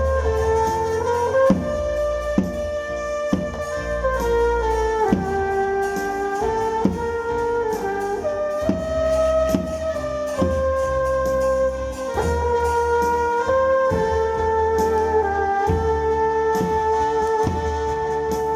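A live band playing a slow melody on wind instruments, the tune held on long notes over low drum hits about once a second.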